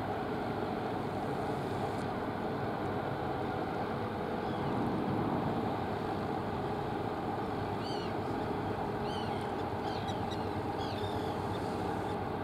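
Steady, even drone of a small cruise ship's engines and machinery passing close by on the water, with a few faint bird chirps about two-thirds of the way through.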